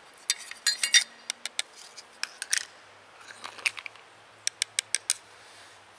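Flat pieces of slate and shale tapped and clicked against each other in light, sharp strikes, in small groups, ending with a quick run of about five taps. The stones are being sounded to tell glassy-ringing slate from duller shale.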